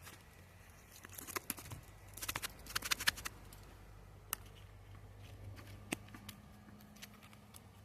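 Light, scattered clicks and taps from handling a nylon machete sheath, bunched in a quick flurry over the first few seconds, then a few single ticks, over a faint low hum.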